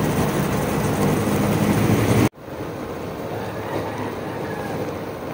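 Shrimp frying with onion and garlic in hot oil in a steel pot, sizzling steadily. About two seconds in the sound cuts off abruptly and gives way to a quieter, steady cooking noise while beaten egg is poured into the pot.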